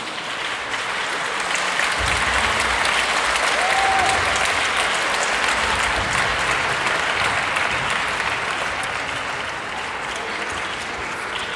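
Audience applauding: clapping that builds over the first few seconds and eases off a little near the end.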